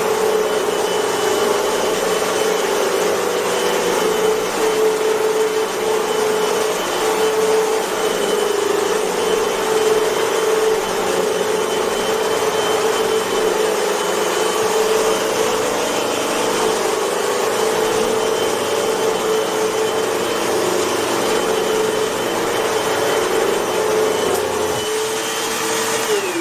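Hoover Whole House Elite UH71230 dual-cyclonic upright vacuum running at full suction, a steady motor hum with a high whine over it. It is switched off near the end, and the motor winds down with a falling pitch. The owner believes the brush roll was off for this run.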